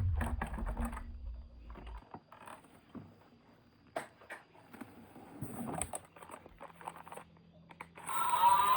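Light clicks and rustles of plastic toys and packaging being handled, after a low rumble stops about two seconds in.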